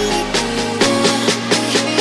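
Background electronic music with a steady beat, held synth notes and a bass line.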